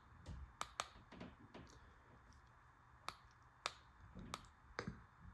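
About nine short, sharp clicks at irregular intervals, against an otherwise near-silent room.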